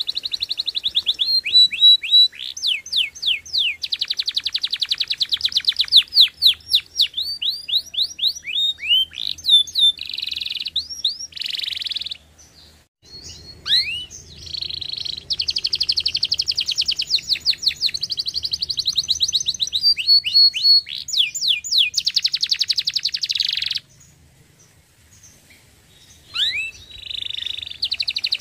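Domestic canary singing a long song of rapid trills and rolls, each phrase a fast run of repeated high notes. The song breaks off briefly about halfway through and again near the end.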